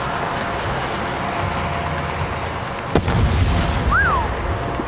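A fireworks aerial shell bursting with a single sharp bang about three seconds in, over a steady background rumble. A brief whistle-like tone rises and falls shortly after.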